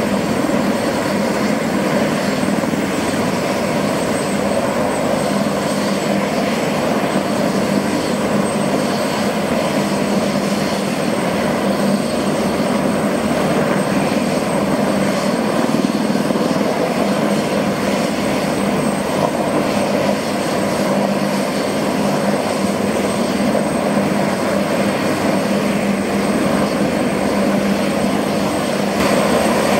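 Bell UH-1Y Venom helicopters' twin turboshaft engines running on the ground: a steady high turbine whine over an even engine and rotor roar, holding constant without spooling up or down.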